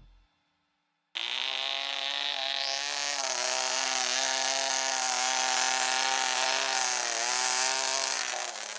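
Tiny Moskito 0.17 cc model-airplane engine running flat out with a high, steady buzz. It starts abruptly about a second in, its pitch sags briefly twice, and it stops near the end.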